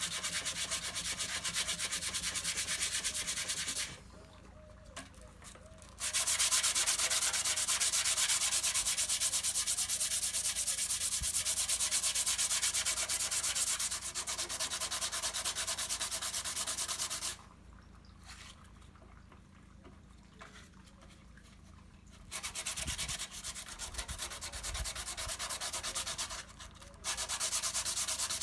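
Dry sanding of cured body filler, a steady scratchy hiss of abrasive on filler. It stops briefly about four seconds in, pauses for several seconds past the middle, and stops once more briefly near the end.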